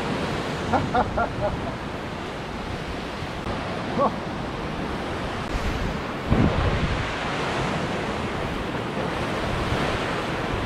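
Ocean surf washing and breaking against sea-cliff rocks, with wind rumbling on the microphone. A louder low rush comes about six seconds in.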